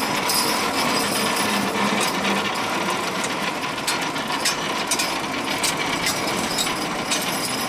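A draft-horse team pulls against a dynamometer truck, and the pulling rig makes a loud, steady, fast rattling clatter. The noise starts as the horses lunge into the load.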